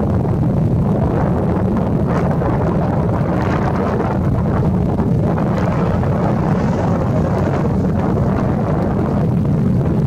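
Wind buffeting the microphone outdoors: a loud, steady, fluctuating low rumble with no clear bird calls standing out above it.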